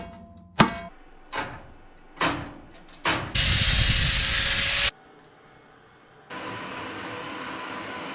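Five sharp knocks with a short ring after each, about one every 0.8 s, then a loud hiss that switches on and off abruptly after about a second and a half. A quieter hiss of about two seconds starts near the end.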